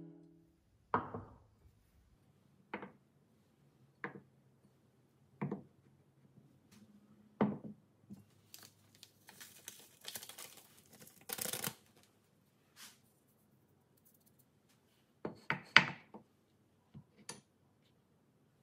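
Kitchen handling sounds: a series of sharp knocks as glass bowls and jars are set down on a wooden board, and, about halfway through, a few seconds of rustling as a baking powder sachet is shaken out over a bowl of flour. More knocks come near the end.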